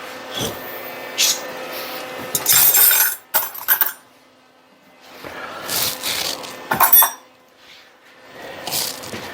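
Metal parts and tools being handled and set down on a workbench: irregular clinks, knocks and scrapes, loudest in two spells with a short quiet pause between them.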